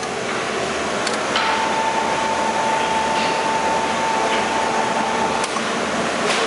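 Patty-O-Matic hamburger patty-forming machine running: a steady mechanical whir with a whine through the middle, and several sharp clacks as it stamps out patties.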